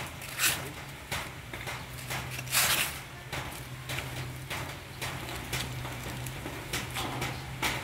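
Small puppies scuffling and eating, with many scattered short clicks and scuffs and a longer rustling scrape about two and a half seconds in, over a faint steady low hum.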